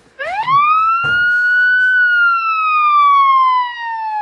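A wailing siren of the police-car kind: one clear tone sweeps up quickly just after the start, then glides slowly and steadily down.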